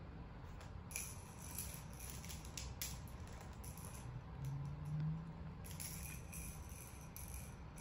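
Baby play-gym toys and plastic clip-on links rattling and jingling as they are handled and hooked on, in two spells of clinking: about a second in, and again near the end.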